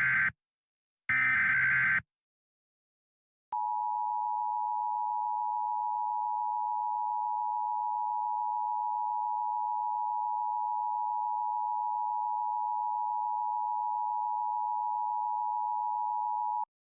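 Emergency Alert System SAME header bursts, a harsh electronic data screech: the end of one, then a second full burst about a second in. After a short pause the two-tone EAS attention signal sounds steadily for about thirteen seconds and cuts off sharply, marking the start of a new alert.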